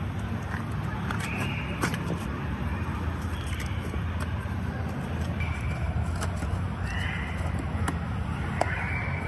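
A long knife cutting into jackfruit gives a few sharp clicks and knocks over a steady low background rumble. Faint short high-pitched calls come and go throughout.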